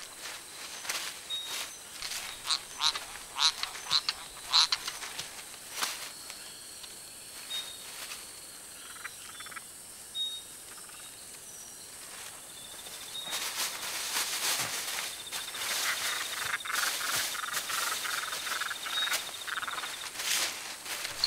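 Mantella frogs calling: short, high clicking chirps scattered irregularly, thickest in the first half. A steady high insect trill joins in during the second half.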